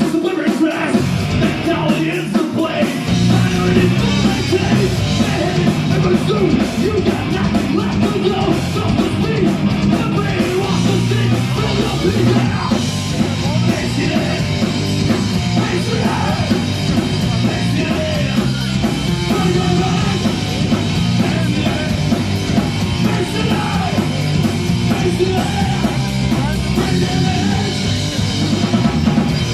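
Live rock band playing loud: distorted electric guitars, a drum kit and shouted vocals. The heavy low end comes in about three seconds in.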